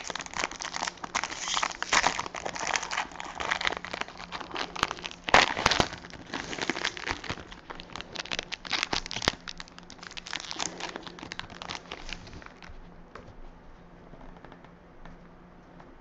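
Foil trading-card pack wrapper being torn open and crinkled in the hands: a dense crackling that dies down about three-quarters of the way through, leaving only a few faint clicks as the cards are handled.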